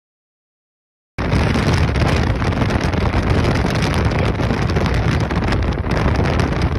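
Silence, then about a second in a loud, steady rush of wind on a phone's microphone, from a hand and phone held out of a moving car's window, with the car's road noise under it.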